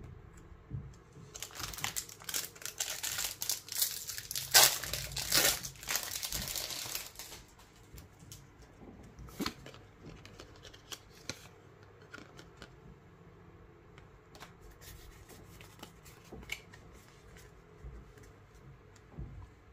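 Pokémon booster pack's foil wrapper being torn open and crinkled for about six seconds, starting about a second in. After that, only faint clicks and taps of the trading cards being handled and squared into a stack.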